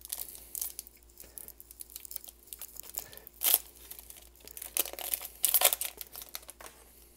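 Foil booster-pack wrapper of a Pokémon card pack being torn open and crinkled by hand: irregular crackling and rustling, loudest about three and a half seconds in and again around five to six seconds in.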